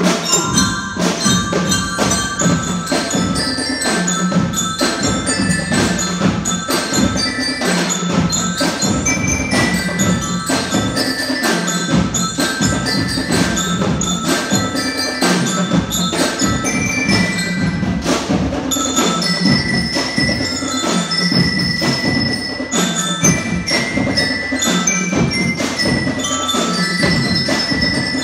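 Drum and xylophone band playing: mallet-struck xylophones ring out a melody over a steady, rapid beat of drums.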